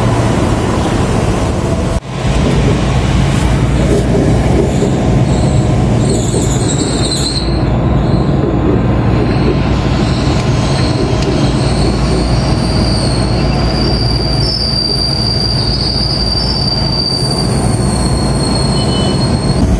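KRL commuter electric train running on steel rails, with a dense rumble and a high, steady wheel squeal that sets in about a third of the way through and holds until near the end.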